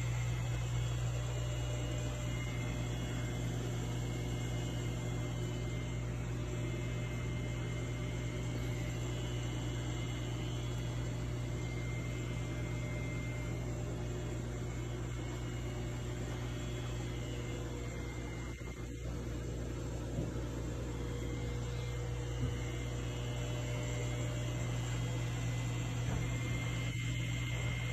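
Large aquarium's equipment running: a steady low electrical hum with an even hiss over it, and a couple of faint taps in the second half.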